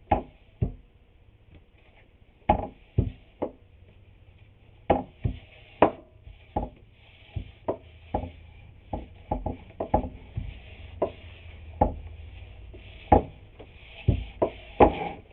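Wooden knocks and clunks at irregular intervals, about twenty in all, as boards and blocks are handled and set down on a workbench.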